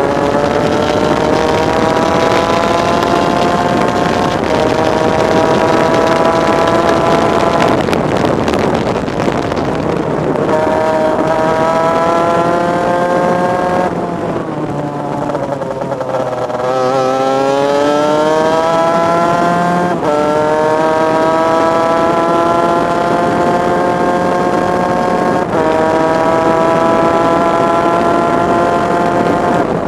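Onboard sound of a superkart's two-stroke engine at racing speed, its pitch climbing and then dropping back sharply at each upshift, several times over. Around the middle it goes briefly quieter and lower before climbing again.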